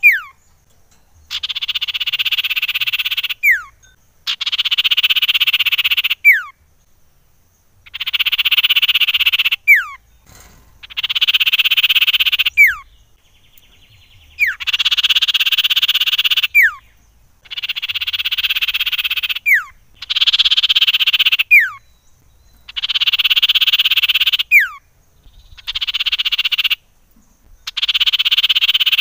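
Common iora (cipoh) calling: a buzzy, rattling trill about two seconds long, repeated about every three seconds, each phrase ending in a quick falling whistle.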